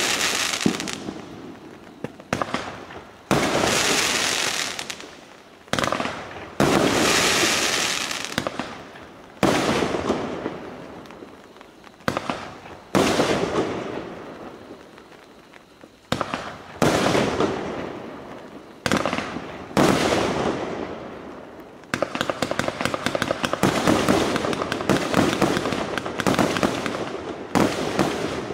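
A Winda 'Party Bus' 42-shot consumer fireworks cake firing aerial shells. Each shot is a sudden sharp report that fades over a second or two, coming every one to three seconds. About six seconds before the end the shots turn into a rapid barrage.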